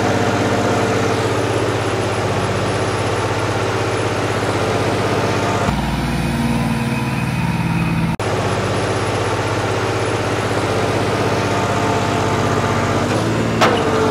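Diesel tractor engines running steadily. The engine sound changes abruptly about six seconds in and switches back with a click about two seconds later. Near the end a quick sound sweeps down in pitch and settles into a steady tone.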